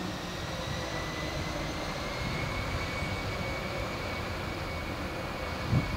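Twin-engine jet airliner's turbofan engines at high power as it rolls away down the runway, heard from behind. The roar is steady, with a thin whine that rises slightly in pitch. Wind buffets the microphone briefly near the end.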